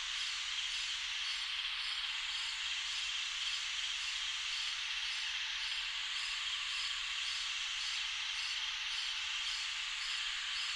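Summer-night insect chorus: a dense, steady high-pitched trilling of crickets, with faint chirps repeating evenly above it.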